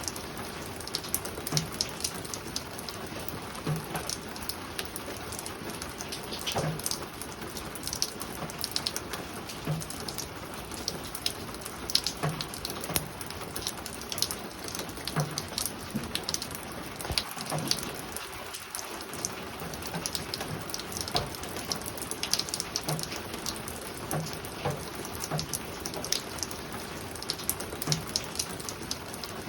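Spring rain falling on a roof: a steady patter of many drops tapping. A dull, low tap recurs every second or so underneath.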